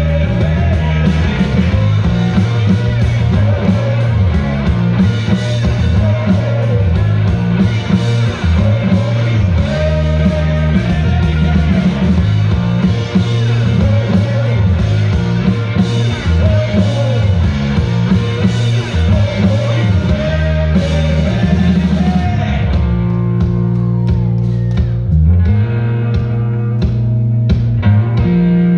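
Live rock played loud by an electric guitar and a drum kit. About three-quarters of the way through, the drums and cymbals drop away to a few scattered hits, and the guitar carries on almost alone.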